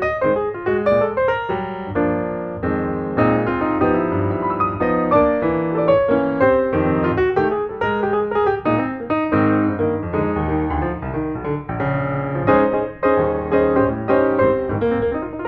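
Background piano music: a busy run of quick notes and chords with no construction sounds audible.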